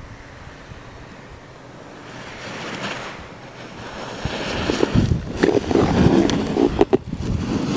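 A hard-boot alpine snowboard's edge carving and scraping over firm snow as a racer turns close past: a rushing hiss that builds gradually and turns loud and rough from about halfway through, with wind buffeting the microphone.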